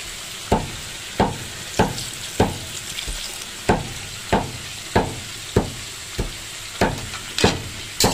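Metal spatula scraping and knocking against a wok in regular stirring strokes, about one every two-thirds of a second with a short pause about three seconds in. Under it, chicken gizzards sizzle in the pan.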